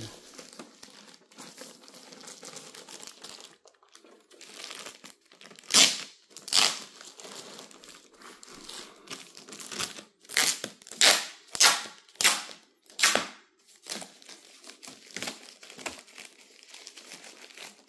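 Thin plastic wrapping crinkling and rustling as it is handled and pulled off a projector, with a run of louder, sharp swishes in the middle.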